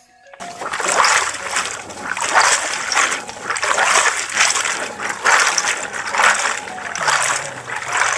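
Shallow stream water splashing and sloshing in repeated surges as a mud-filled mesh net is swished back and forth by hand to rinse the mud out of it.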